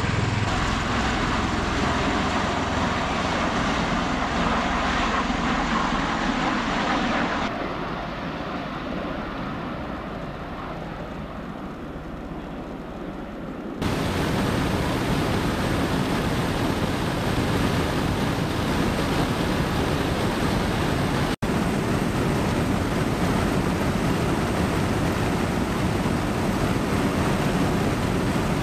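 Bell Boeing MV-22B Osprey tiltrotor noise, a steady dense rush of rotor wash and engine with no speech. It first comes from an Osprey settling in its own dust cloud, turns quieter and duller for about six seconds, then from about fourteen seconds in becomes the louder, fuller rush of engines, rotors and wind inside an Osprey's cabin with the rear ramp open. There is a momentary dropout a little past twenty seconds.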